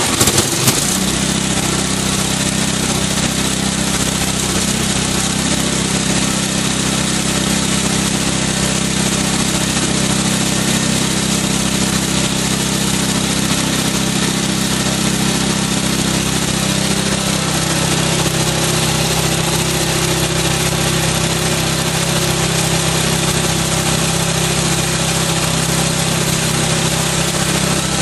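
Small single-cylinder gasoline engine running steadily, driving the pump of a mist-spraying machine, just after starting. Its note changes slightly about seventeen seconds in.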